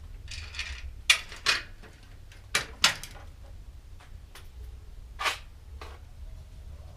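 Tools and bike parts being handled and set down: a series of short, sharp clatters and knocks, about six in all.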